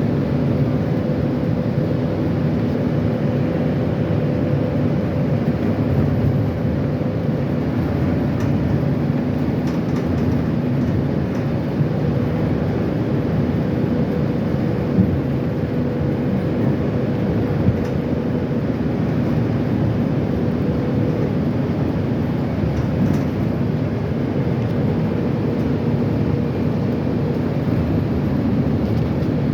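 Metro train running, a steady rumble with a faint steady hum that fades out and returns.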